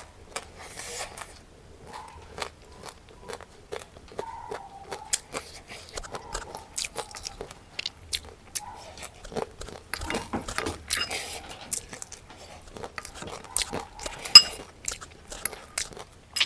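A person chewing and crunching food close to the microphone: a run of wet mouth clicks and crunches, with one sharp loud click about fourteen seconds in.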